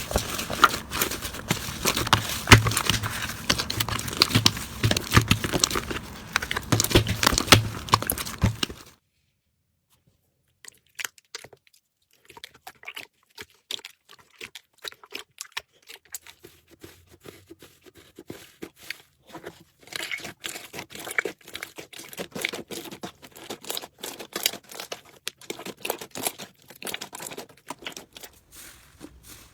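Slime being squeezed and poked by hand, giving off dense crackling and popping. About nine seconds in the sound cuts off abruptly. After a moment it resumes as quieter, sparser crackles and clicks.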